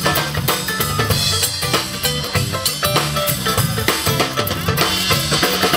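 Live country band playing an instrumental break: a steady drum-kit beat with bass drum and snare, over a moving bass line.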